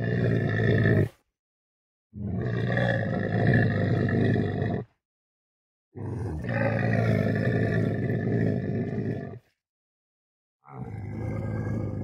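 Camel grunting: four long, low, rumbling growls, each a second and a half to three and a half seconds long, separated by silent gaps.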